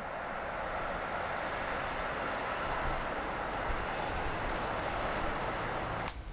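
Steady outdoor city noise, a distant wash of traffic and town sound without distinct events, cutting off near the end.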